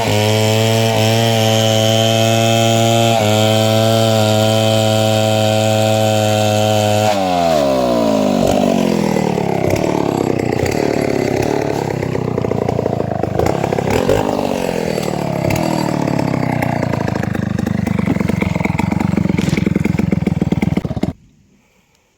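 Two-stroke chainsaw running at high, steady revs while cutting timber into planks. About seven seconds in the revs fall away, and the saw runs at a lower, wavering speed before cutting off abruptly near the end.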